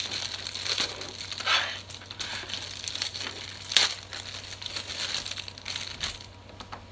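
Handling of a silicone rainbow pop-it fidget toy: irregular rustling and crinkling with scattered sharp clicks, the loudest about a second and a half in and near four seconds in.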